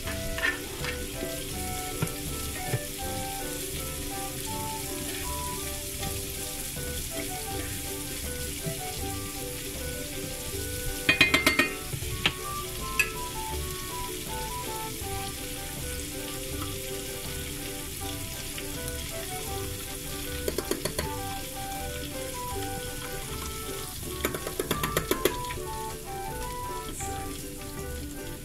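Shrimp deep-frying in a saucepan of hot oil, with garlic and leeks frying in a pan beside it: a steady sizzle. Metal tongs clack against the pot in short rapid bursts a few times.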